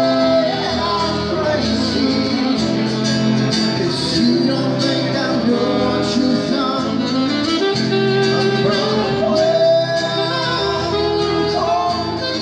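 Background music: a song with a singing voice over guitar, starting to fade out near the end.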